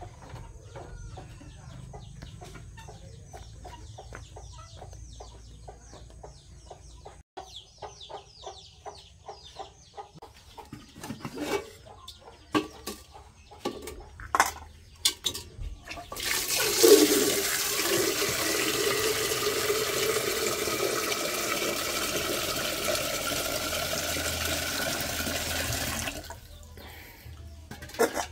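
Water gushing steadily for about ten seconds, starting suddenly a little past the middle and cutting off abruptly near the end. Before it come a run of quick faint ticks with chickens clucking, then a few sharp knocks.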